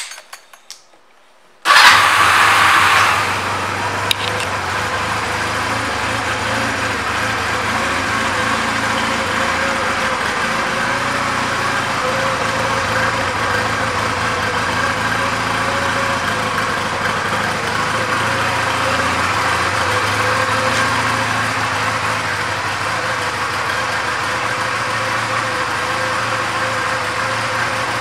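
2007 Honda Rebel's 234 cc air-cooled parallel-twin engine starting about two seconds in, loud at first, then settling into a steady idle.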